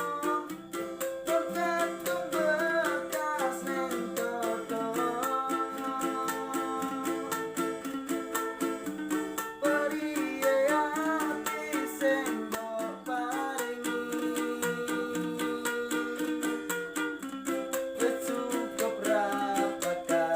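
Street busker singing to a steadily strummed ukulele.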